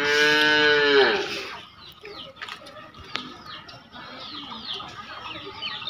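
A rooster crowing: one long call, held steady and then falling away as it ends, within the first second and a half. Small birds chirp repeatedly after it.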